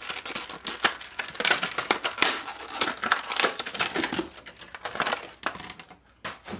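Crinkling and crackling of a clear plastic marker package as dual-tip watercolor markers are pulled out, with irregular clicks of the pens knocking together. A few last clicks come near the end as the markers are set down on a book.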